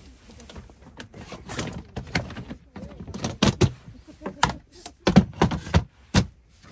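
Irregular knocks and clatters of hard objects being handled, coming in uneven clusters and loudest in the second half.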